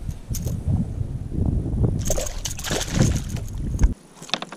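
Water splashing and sloshing against the side of a kayak, with irregular knocks and bumps on the hull as a fish is handled at the water's edge. A longer burst of splashing starts about two seconds in and stops just before the end.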